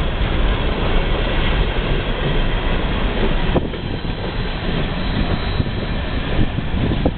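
Freight train hopper cars rolling past close by: a steady rumble and clatter of steel wheels on the rails, slightly duller for a moment about halfway through.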